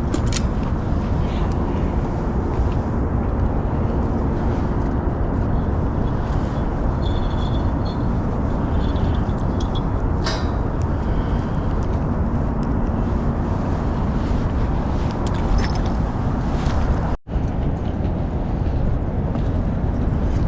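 Steady low rumble of outdoor background noise, with faint brief high squeals a third of the way in and a momentary dropout about three-quarters through.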